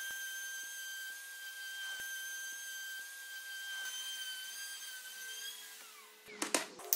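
Festool OF 2200 plunge router running at full speed with a steady high whine while routing spline grooves across the edge of a wooden panel. The motor winds down about six seconds in, followed by a few sharp clicks.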